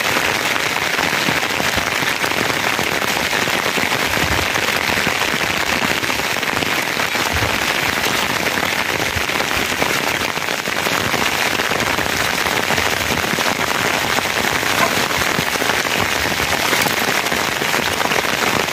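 Steady rain falling, a dense, even patter of drops on the ground and surrounding surfaces.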